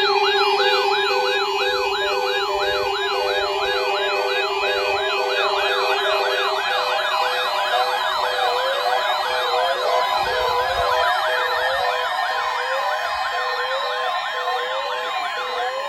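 Electronic siren yelping in rapid up-and-down sweeps, about two to three a second, over steady alarm tones. A second yelping siren joins out of step about five seconds in, and a low steady tone drops out about six and a half seconds in.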